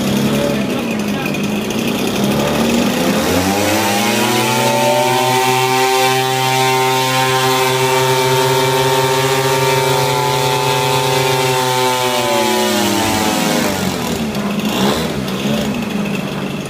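Zenoah 26cc two-stroke petrol engine on a large radio-control model aircraft, on its first run. It idles, is throttled up about three seconds in, holds steady at higher revs, then is throttled back down to idle about twelve to fourteen seconds in.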